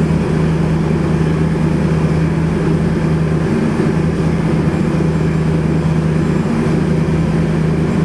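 Twin-turbo 427 cubic-inch small-block Chevy V8 idling steadily between dyno pulls.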